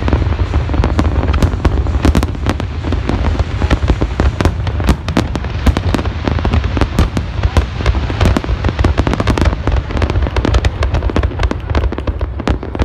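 Large fireworks display: a dense, continuous barrage of overlapping bangs and sharp pops over a steady deep rumble.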